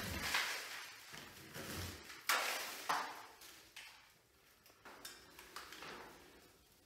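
Scraping and rustling as a cut-out square of water-damaged ceiling drywall is pulled free and handled, with two sharp knocks a little over two and about three seconds in.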